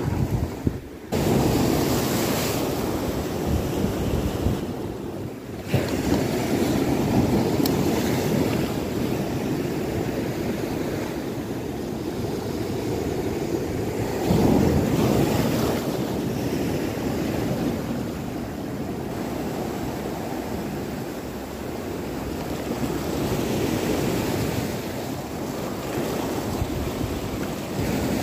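Sea waves breaking and washing over a rocky, pebbly shore in a continuous surf, swelling louder about halfway through.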